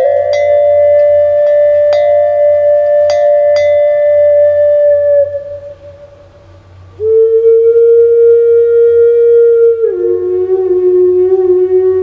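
A Ukrainian folk flute playing long held notes, with a few bell strikes ringing over the first note. That note fades out about five seconds in, and after a short pause the flute comes back on a lower note that steps down once more near the end.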